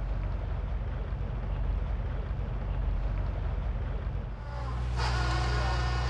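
Steady low rumbling outdoor noise, which about four and a half seconds in gives way to the steady hum and whine of a fishing boat's engine and deck machinery running.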